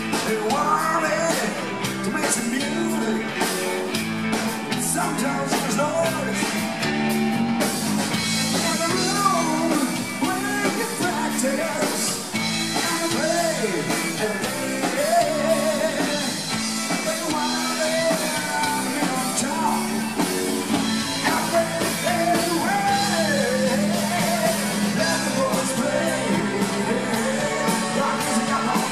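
Live rock band playing: a singer over guitar and drums, loud and steady; the cymbals and top end come in fuller about a quarter of the way in.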